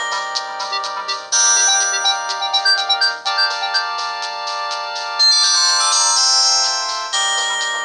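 Siemens Xelibri ringtone playing on a Samsung GT-E2121B mobile phone: a melody of several notes held together, with quick short notes above them, the chord changing every second or two.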